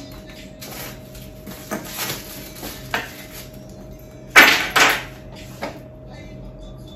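Hands unsealing and handling an Apple AirPods Pro cardboard box: light scrapes and clicks, then two loud rasping scrapes a little after four seconds.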